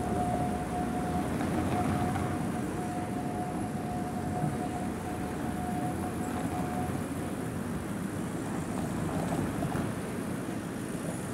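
City street traffic: cars driving past over a steady rumble. A steady tone runs through it and stops about seven seconds in.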